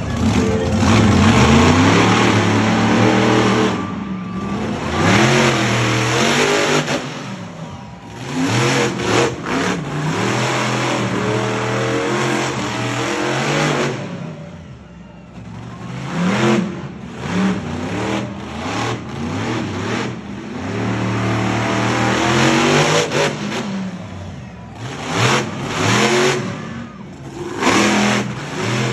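Monster truck engine revving hard, its pitch rising and falling over and over as the truck drives and turns on dirt, with a brief lull about halfway through.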